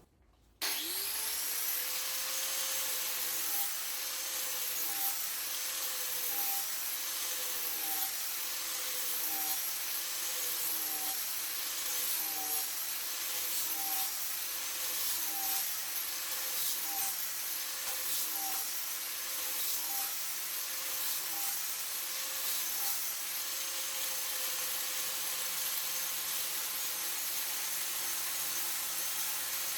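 Angle grinder fitted with a Kutzall shaping dish switching on about half a second in and spinning up, then grinding the face of a silver birch log. Its pitch dips and recovers about every second and a half.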